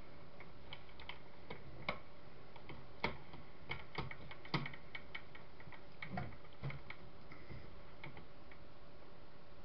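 Irregular small clicks and knocks of a tool and fingers working at metal parts of a CCTV camera's pan-tilt mechanism. The loudest knocks come about three and four and a half seconds in, over a faint steady hum.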